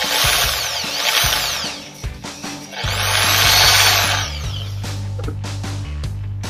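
Hoyoma impact drill with a wood bit in its chuck, run free in the air in two short bursts, the second a little louder, its motor whine rising and falling in pitch as it speeds up and slows. A test spin to check that the new bit runs true without wobbling.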